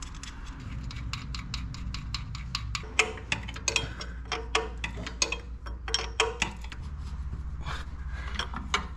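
Ratchet wrench clicking quickly and evenly while tightening the nuts on the turbo-to-exhaust-manifold studs by hand. About three seconds in, the clicking gives way to irregular, louder metal clinks for a few seconds before the quicker clicking returns, all over a steady low hum.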